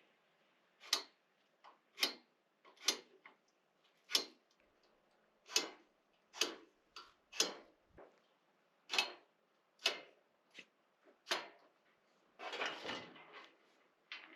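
A folding camp table being set up: a string of sharp clicks and knocks from its parts, roughly one a second, then a longer rattle near the end.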